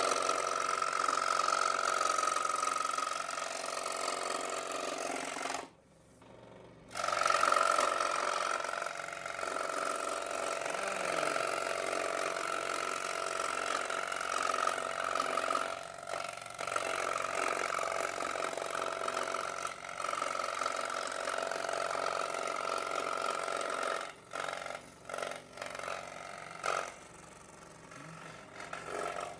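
Scroll saw running and cutting cardboard, a steady mechanical running note with a high whine. It stops for about a second some six seconds in and then starts again. Near the end it cuts in and out several times.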